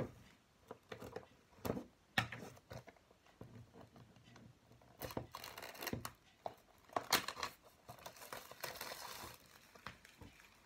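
Packaging on a DVD box set being torn open and crinkled by hand: irregular crackles and tearing noises, with a longer stretch of crinkling and tearing about two-thirds of the way in.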